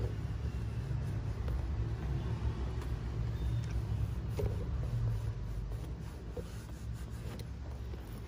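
A low, uneven rumble with a few faint scrapes and ticks as a cloth towel is rubbed and wiped over a leather handbag.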